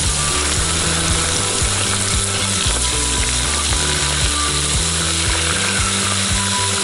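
Crab pieces deep-frying in a pot of hot oil: a steady, loud sizzle.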